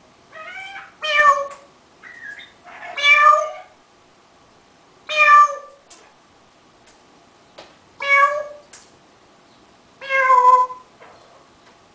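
African grey parrot mimicking a cat's meow: about five drawn-out meows a couple of seconds apart, with a few softer, shorter calls between the first ones.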